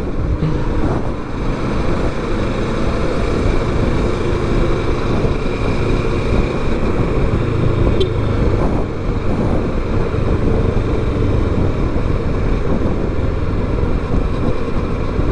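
Kawasaki Versys 650 parallel-twin motorcycle cruising at steady road speed, its engine hum under a constant rush of wind and road noise.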